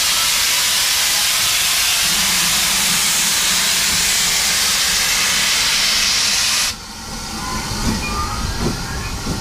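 Loud, steady hiss of steam blowing from the pannier tank steam locomotive L150, cutting off abruptly about seven seconds in. Then comes the quieter rumble of the train moving past, with a few knocks.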